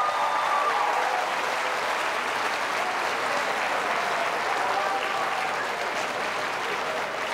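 Audience applauding, with a voice or two cheering in the first second, slowly dying down toward the end.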